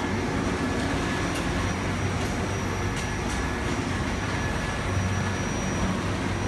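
Steady hum and rumble of sewing machinery on a garment factory floor, with a thin high whine and a few light clicks.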